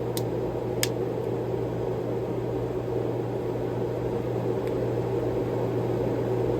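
Steady low electrical or fan-like hum, with two short light clicks within the first second, in the rhythm of a Swiss Army knife's awl and tools being handled.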